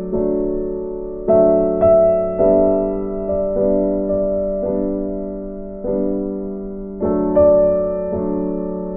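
Background music: a slow, gentle piano melody, with notes and chords struck about once a second, each ringing on and fading.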